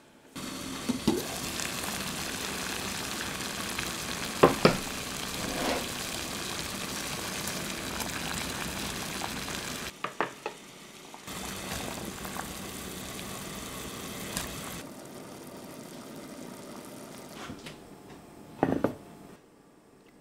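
Food cooking on the heat: a steady sizzling, bubbling hiss that drops away and comes back a few times. Metal utensils clink against the cookware, loudest about four and a half seconds in and again near the end.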